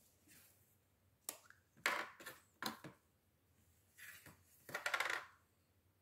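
Faint clinks and scrapes of small hard objects handled on a tabletop: sharp taps about a second in and near the three-second mark, with brief scraping rustles around two and five seconds.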